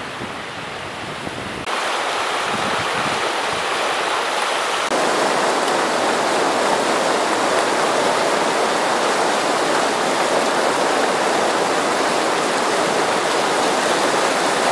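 Muddy floodwater rushing down a desert wadi after heavy rain: a steady rush of water that steps louder about two seconds in and again about five seconds in.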